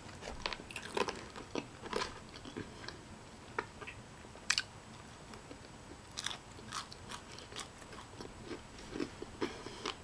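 A person chewing a mouthful of food close to the microphone: irregular short wet clicks and smacks of the mouth, the sharpest about four and a half seconds in.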